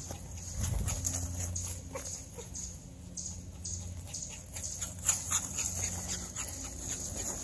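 Cairn terrier tearing around on grass, with dog sounds over a quick, irregular run of soft rustles and ticks.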